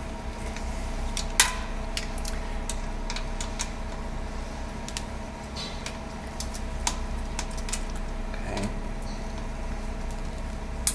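Hand tools working on the exhaust clamp hardware: scattered metal clicks and taps, with a sharp metallic clink about one and a half seconds in and another at the very end, over a steady hum.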